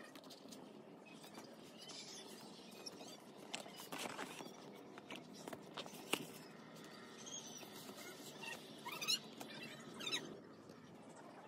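An album box and its contents handled by hand while being unboxed: cardboard and plastic rustling, sliding and scraping, with scattered clicks and taps. There are a few short squeaks about nine seconds in.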